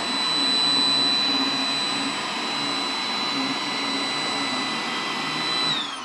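iRobot Roomba 980 robot vacuum running on carpet: a steady hiss with a high whine as it drives onto its charging dock. Near the end the whine starts falling in pitch as the vacuum motor winds down on docking.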